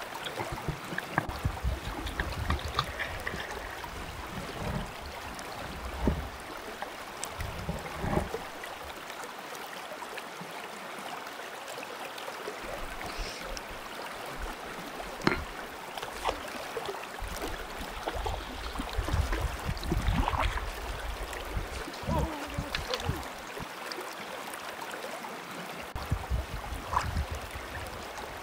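Flowing water of a limestone spring creek, rippling close by, with low rumbles that come and go and occasional light splashes and knocks.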